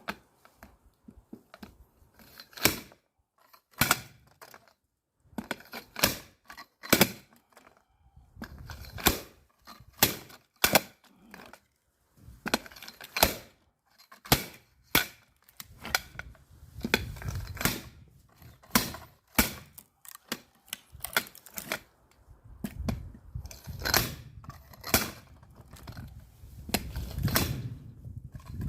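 An axe splitting firewood: a long run of sharp wooden cracks and thunks, roughly one a second, with a low rumble underneath from about eight seconds in.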